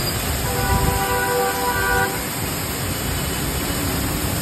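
Steady hiss of a high-pressure washer jet from a 300-bar triplex plunger pump spraying a motorcycle, over street traffic noise. A vehicle horn sounds once for about a second and a half, starting about half a second in.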